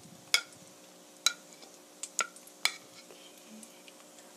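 Metal spoon clinking against a glass mixing bowl of beaten egg, four sharp clinks with a brief ringing tone, as peppers are turned in the egg wash.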